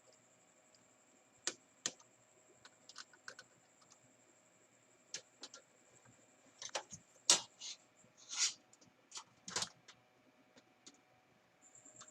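Scattered small clicks and taps of small parts and screws being handled and fitted into an opened stereo's chassis, irregular and spread over the whole stretch, the sharpest about seven and nine and a half seconds in.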